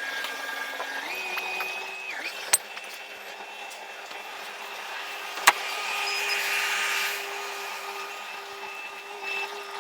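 Compact loader's diesel engine running steadily, its pitch stepping up about a second in as it is throttled up, with two sharp metallic clanks a few seconds apart.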